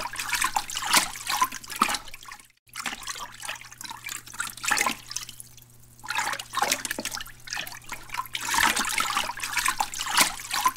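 Water splashing and sloshing in uneven bursts as a dog paddles through it, with a brief drop-out about two and a half seconds in and a faint low hum underneath.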